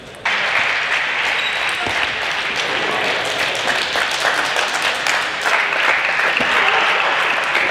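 Spectators applauding a won point. The dense patter of many hands clapping comes in abruptly just after the start and holds steady.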